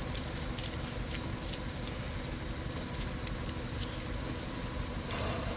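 Low, steady rumble of heavy vehicle engines running, growing louder near the end.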